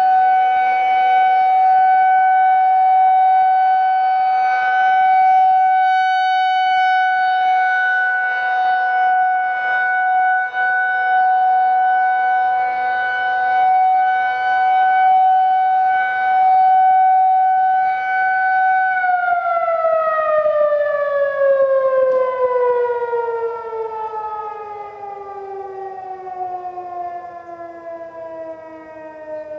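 Federal Signal 2001-130 electromechanical rotating siren sounding a loud steady tone, with another siren's lower tone fainter behind it. About 19 seconds in it is switched off and winds down, its pitch falling slowly and its level dropping.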